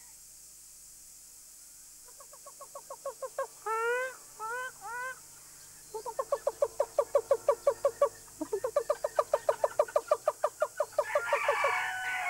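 Animal calls: after a quiet start, rapid trains of short pitched notes, about nine a second, with a few short rising whooping calls in the middle and a rougher, noisier call near the end.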